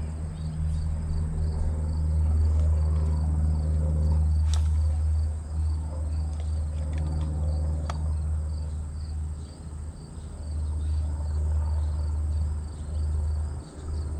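Insects, crickets by their sound, chirping in an even pulsing rhythm over a steady low rumble. Two sharp clicks, about four and a half and eight seconds in.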